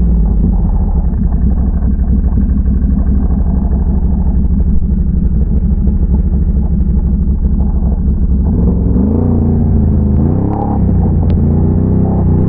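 ATV engine running under load, a loud, steady low drone, then rising and falling in pitch twice near the end as the throttle is opened and eased off.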